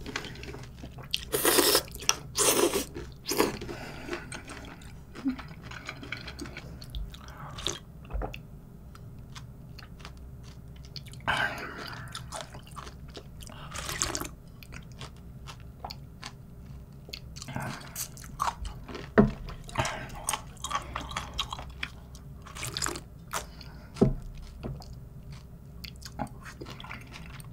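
Chewing and crunching of a cold spicy raw-seafood soup (mulhoe) with sea cucumber and noodles, with noodle slurps and sips of broth drunk straight from the bowl; short crackly bursts with pauses between.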